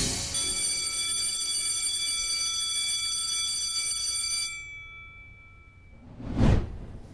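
The closing note of a title theme: a held electronic chord of several high tones ringing steadily, then fading out after about four and a half seconds. Near the end, a short rush of noise swells and falls away.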